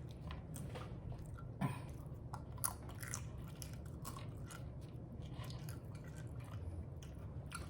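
Close-miked chewing, faint, with scattered small crunches and mouth clicks; a slightly louder crunch comes about 1.7 seconds in and another a second later.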